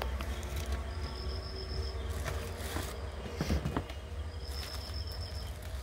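Light rustling and clicking of plastic wrap as a rechargeable fan's base and pole are handled, over a steady low hum. A thin high tone sounds for about a second, twice.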